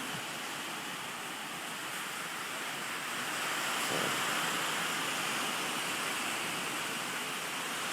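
Hurricane rain and wind making a steady rushing noise that swells slightly about three seconds in.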